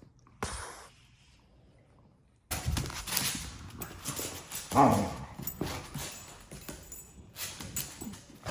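Two young dogs tussling over a toy: scuffling and small clicks of paws and toy. The scuffling starts suddenly about two and a half seconds in, after a near-quiet start with one brief rustle. About five seconds in, one dog gives a short vocal sound that falls in pitch, the loudest moment.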